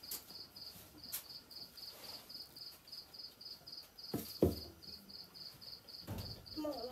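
Cricket chirping steadily, about three short chirps a second. A knock about four and a half seconds in is the loudest sound.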